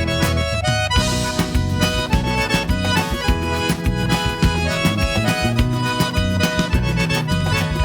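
Instrumental break of a forró song: an accordion melody over a steady, driving drum beat and bass.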